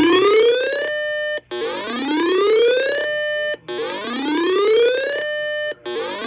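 Electronic emergency alert tone. A rising whoop sweeps up in pitch, holds briefly on a steady note, and repeats about every two seconds.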